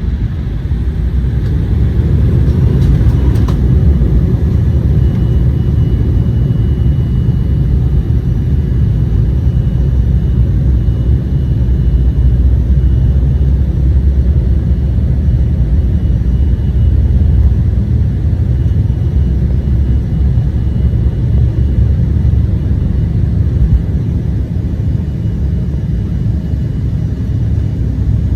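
Steady, loud low rumble inside the cabin of an Embraer 175 jet airliner: engine and airflow noise. A faint steady high tone joins about three seconds in.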